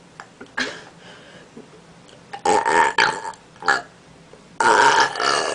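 A girl burping on purpose, without any soda: a faint short burp about half a second in, a loud burp or two around the middle, a brief one just after, and a longer loud burp near the end.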